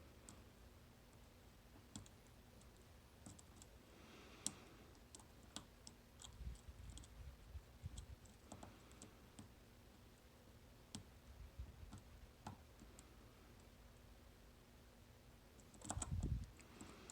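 Faint, irregular clicks of a dimple pick and tensioner working the pins inside a 9-pin dimple lock, with a louder bump of handling near the end.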